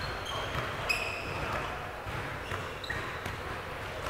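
Ball bouncing and thudding during an indoor team ball game, with a sharp smack about a second in and several short high squeaks.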